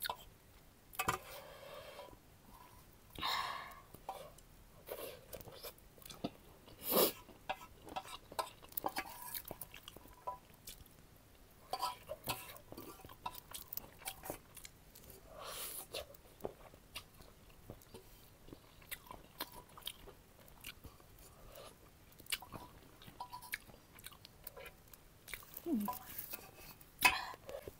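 Close-up mukbang eating sounds: a person chewing food with many small wet clicks and smacks, and now and then a louder bite or slurp.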